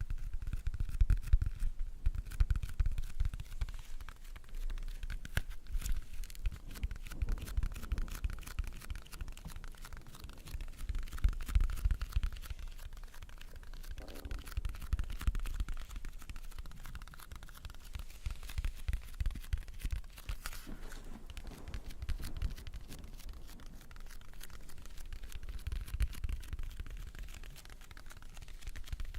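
Close-miked ASMR trigger sounds: an object scratched and rubbed right against the microphone, a continuous fast crackling texture with low thumps from handling.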